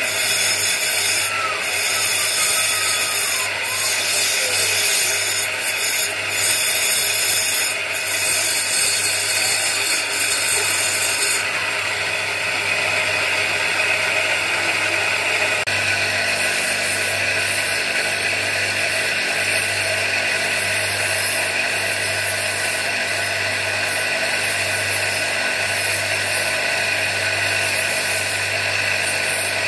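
Electric bench grinder running with a steady motor hum while a bacan gemstone is pressed against the spinning wheel and ground to shape, a continuous rasping grind over the hum. The grinding sound changes in character about halfway through.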